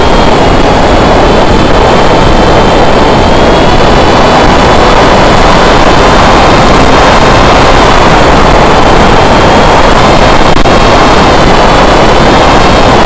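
Onboard sound of a foam FPV flying wing in flight: a loud rush of wind on the camera microphone over the steady whine of its electric motor and pusher propeller, the whine shifting a little in pitch a few times.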